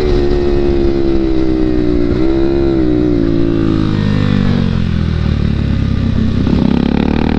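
KTM 390's single-cylinder engine running at speed while the bike leans through a bend. Its pitch holds steady at first, falls from about three seconds in as the rider eases off through the corner, and rises again near the end as he gets back on the throttle.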